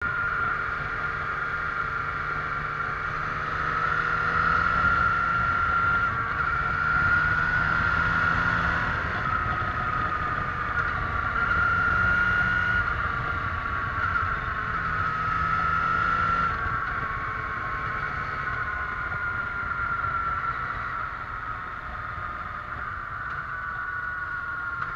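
Motorcycle engine running at road speed, with wind and road rush, heard from a camera on the handlebars. Its whining note rises and falls with the throttle and eases down near the end as the bike slows.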